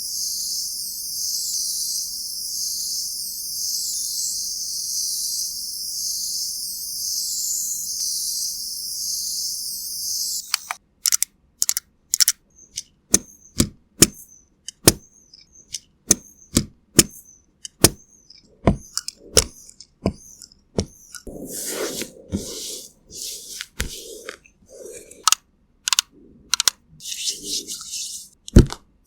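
A shrill, high-pitched chirring that cuts off suddenly about ten seconds in. A run of sharp, irregular cracks and clicks follows, with a few short crunchy crackles among them near the end.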